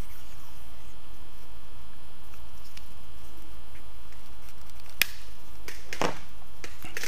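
Faint handling sounds of a screwdriver being wrapped with electrical tape, over a steady low hum. A sharp click comes about five seconds in and a softer knock about a second later.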